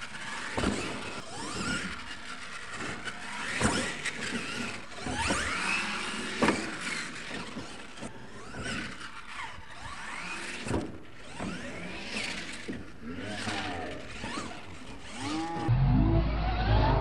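RC monster truck's motor whining up and down in pitch as it accelerates and brakes, with tyres squealing and scrabbling on dirt and sharp knocks as it lands jumps. A louder low rumble comes in near the end.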